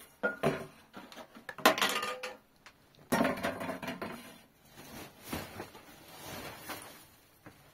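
Irregular clinks and knocks of hard objects being handled, each with a short ring, with a louder clatter about three seconds in.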